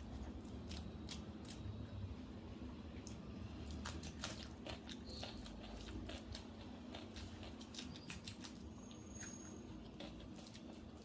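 A person eating close to the microphone: chewing and mouth sounds with many sharp, irregular clicks and crunches from a rice-and-curry meal with papad.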